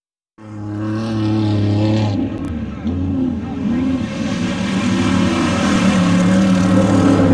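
Off-road race vehicle engines running loud, their pitch swooping up and down as they rev. The sound cuts in abruptly about half a second in.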